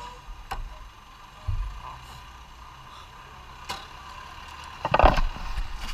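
Handling noise close to the microphone: clicks and rustling of hands working small items and a cloth at a waist bag, with a low bump about a second and a half in and a louder scuffing clatter near the end, over a faint steady background hum.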